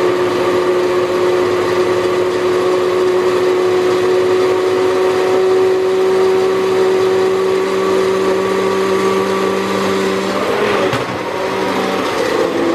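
Hand-held immersion blender running steadily while it purées soaked mustard seeds with white wine and vinegar into mustard. Its steady whine wavers and drops in pitch briefly about ten seconds in as the load on the blade changes.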